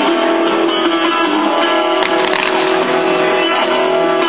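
Classic rock song played over a stadium sound system, with guitar to the fore, and a few sharp crackling pops about two seconds in.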